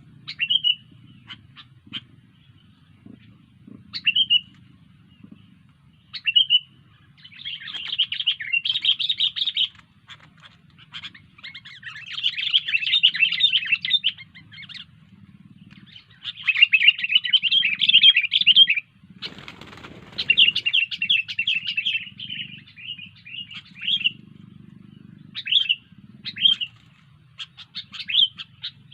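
Sooty-headed bulbul (kutilang) singing in full voice: scattered short chirps between several runs of rapid, chattering warbled phrases, each a few seconds long. A brief noisy rustle sounds about two-thirds of the way through.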